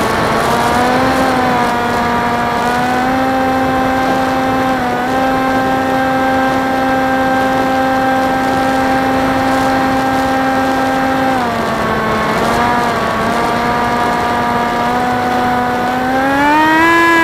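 Electric motor and propeller of a Horizon Theory Type W flying wing in flight, picked up by its onboard camera as a steady whine over a hiss of rushing air. The pitch drops as the throttle eases off about eleven seconds in, then rises again near the end.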